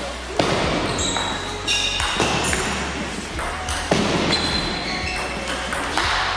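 Table tennis rally: the ball clicking off the rackets and the table again and again, with short high squeaks in between.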